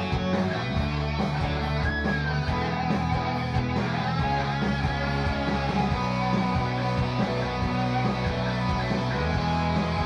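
Instrumental break of a song, led by guitar over a steady beat and bass.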